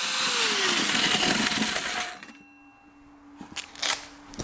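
A power tool running loudly, its pitch dropping, then cutting off about two seconds in, leaving a faint steady hum and a few clicks.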